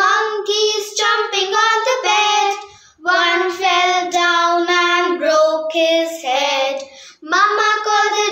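Children singing a tune in sustained phrases with held notes, pausing briefly about three seconds and seven seconds in.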